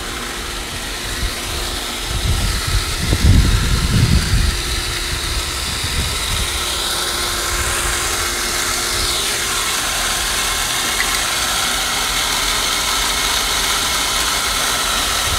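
Swimming pool pump running steadily with a constant hum, circulating water through a newly installed cartridge filter, the air leak at the front of the pump now fixed. A low rumble swells about two to four seconds in.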